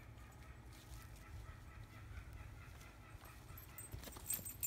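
Low outdoor rumble with a short metallic jingle about four seconds in: the leash clip and collar hardware of a Dalmatian shaking as it gets up.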